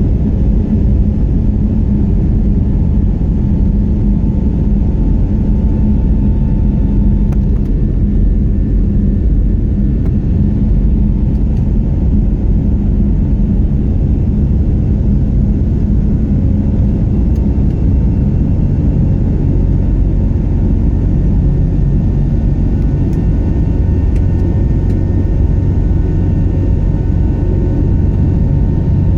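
Steady low rumble of an airliner, with a faint steady hum running through it, typical of jet cabin noise.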